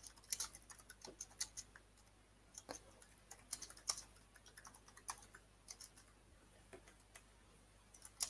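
Faint, irregular keystrokes on a computer keyboard: someone typing a short text.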